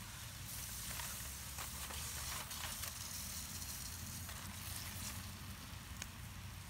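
Chicken searing in a cast iron skillet over a wood fire: a steady sizzle with a few small pops and crackles. There is a light knock about six seconds in as a brick is set on the foil-covered chicken.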